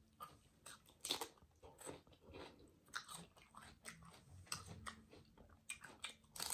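Close-miked crunching and chewing of a raw celery stick: faint, irregular crisp crunches, one or two a second, with a louder crunch near the end.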